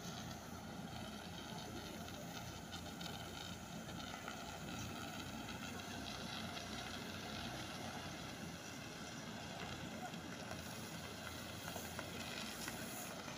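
Fire engine's engine running steadily to drive its water pump while a hose sprays a jet of water, a constant rushing drone.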